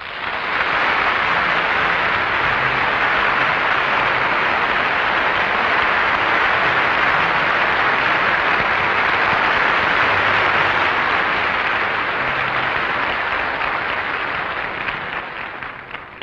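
Audience applauding, swelling in at once, holding steady, then dying away over the last couple of seconds.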